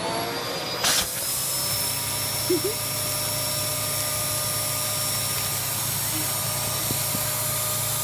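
Household vacuum cleaner motor spinning up with a rising whine, then running steadily as its hose sucks the air out of a plastic space-saver storage bag through the bag's valve.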